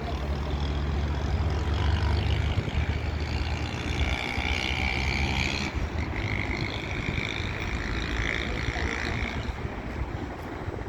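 Boeing 737-800's CFM56-7B jet engines at takeoff power, a steady low rumble with a high whine that rises over it about four seconds in and fades near the end.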